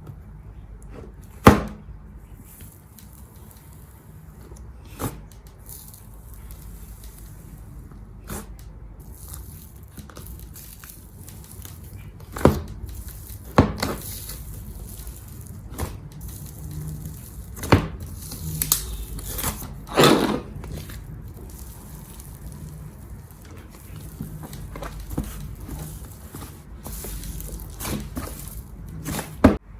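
Slime being squeezed and worked by hand, giving irregular sharp pops and crackles over a low steady hum.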